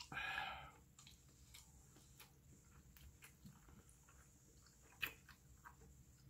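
A person chewing a mouthful of beef tripe and intestine, with faint wet mouth clicks. A short breathy rush comes at the start, and one sharp click about five seconds in.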